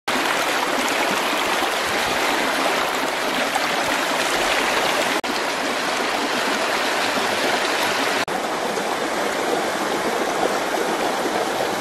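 Fast-flowing stream water rushing and splashing as a steady, loud rush, cut off for an instant twice.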